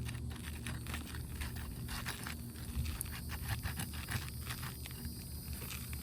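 Scattered light clicks and scrapes of a roofer working on roof shingles, over a steady low rumble.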